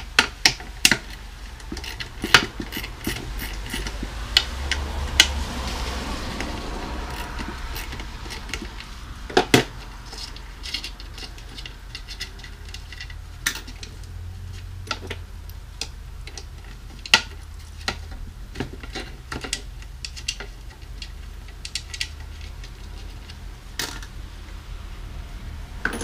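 Small metal drum hardware (lug screws, lugs) clinking and tapping at irregular intervals as screws are worked out of a tom shell with a hand wrench, with a few louder clinks about 9, 17 and 24 seconds in.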